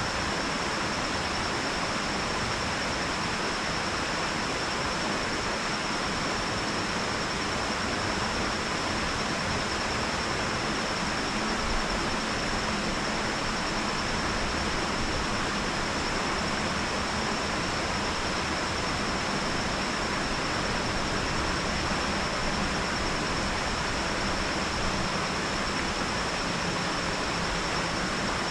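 Water spilling over a lake dam and rushing out into the creek below, a steady even rush with no breaks. A thin steady high tone runs through it.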